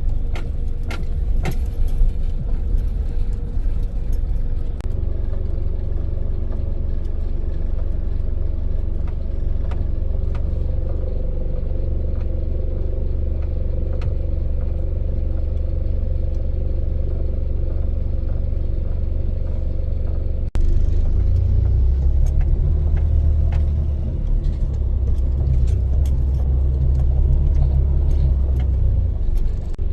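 Car driving, heard from inside: a steady low rumble of road and engine noise with small clicks and rattles. About twenty seconds in the sound cuts abruptly to a louder, deeper rumble.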